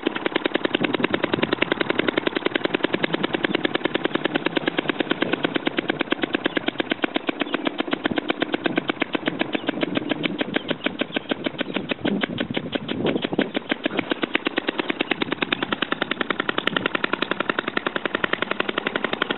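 RMC Type D single-cylinder model gasoline engine running slowly on its wick-fed carburettor with no choke, firing in a steady, rapid string of sharp pops. The beat falters briefly about two-thirds of the way through, then settles back into its even rhythm.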